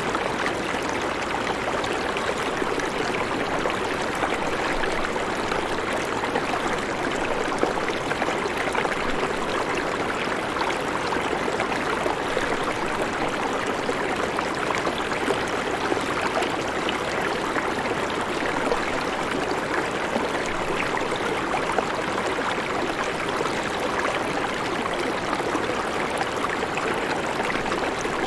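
Shallow river flowing steadily over stones, a constant rushing of water. Now and then, faint taps of a knife on a wooden cutting board can be heard as radishes are sliced.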